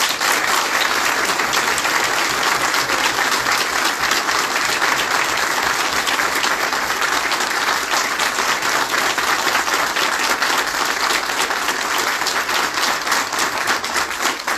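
Loud, steady applause from an audience, many people clapping at once.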